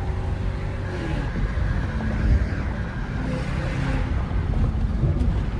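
Lexus GS430's 4.3-litre V8, its catalytic converters removed, running steadily on the move, with road and wind noise.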